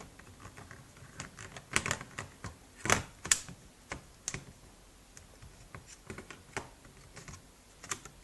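Irregular plastic clicks and knocks as a Samsung N150 netbook's battery is handled and fitted back into its bay, the loudest about three seconds in.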